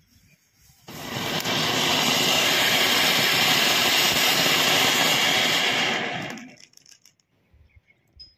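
Cone fountain firecracker (anar) spraying sparks with a loud, steady hiss. It catches suddenly about a second in, holds for about five seconds, and dies away.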